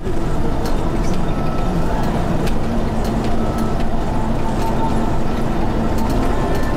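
Passenger coach running along the road, heard from inside the driver's cab: a steady engine and road rumble, with a few faint clicks and rattles here and there.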